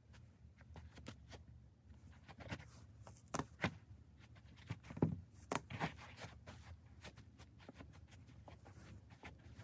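Footsteps in foam Crocs clogs on carpet: soft thuds and scuffs, with a handful of louder steps in the middle.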